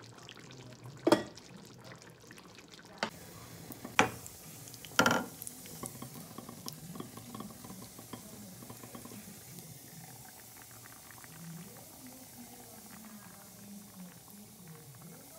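A few sharp knocks of wood and clay on a clay tagine in the first five seconds, as it is stirred with a wooden spoon and its conical lid is set back on. Then a steady faint sizzle and crackle of almonds and pistachios frying in oil in a pan.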